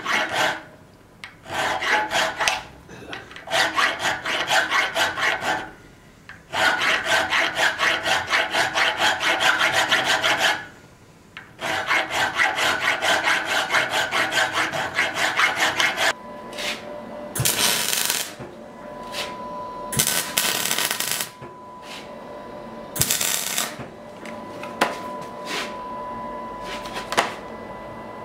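A round file rasping through the hole in a metal basilisk-head sword pommel held in a vise, in five runs of quick back-and-forth strokes, several a second, with short pauses between. After about 16 seconds the filing stops, leaving a faint steady hum broken by a few short, loud hissing bursts.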